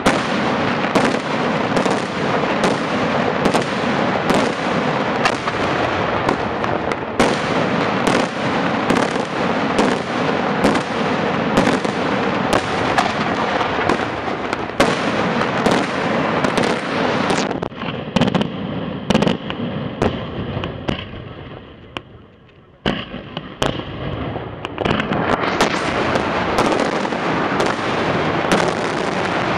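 Daytime fireworks display: a dense, rapid barrage of aerial bangs and crackling salutes. About two-thirds of the way through the firing thins out and fades for a few seconds, then a sudden bang starts a dense barrage again.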